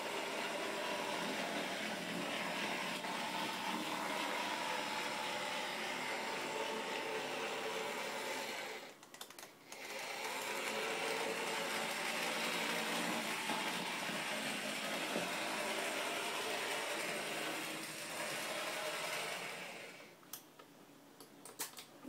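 Small electric motor of an HO-scale model locomotive running with a steady whine over the track. It drops out briefly about nine seconds in and again near the end.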